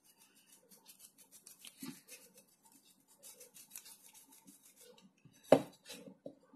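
Nearly dry paintbrush bristles scratching over an earthen idol's surface in quick short strokes, with one louder knock about five and a half seconds in.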